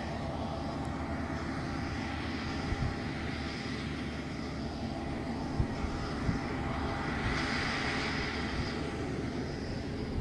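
Tractor engine running steadily while a LEON vertical-beater manure spreader throws manure out behind. A few short knocks stand out over the drone.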